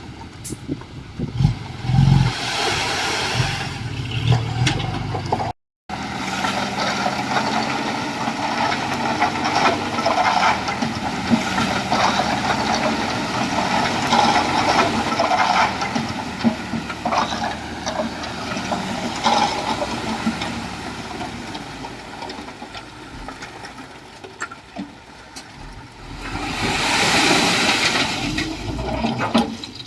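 Diesel engines of heavy earthmoving machinery running under load, with scattered knocks and a brief gap about six seconds in. A louder hissing rush comes near the end.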